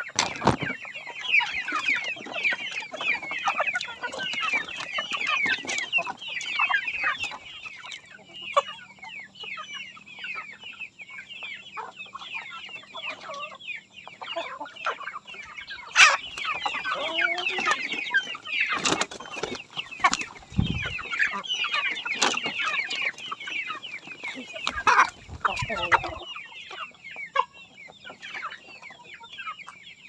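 A flock of chickens clucking, with a dense run of short, high peeping calls and a few sharp knocks in the middle.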